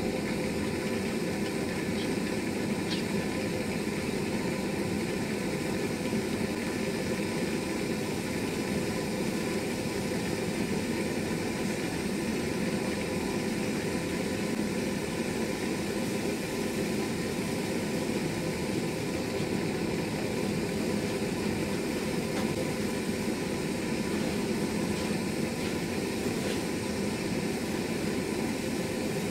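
Handheld gas torch burning with a steady, unbroken rushing noise, its flame held on an aluminium drink can.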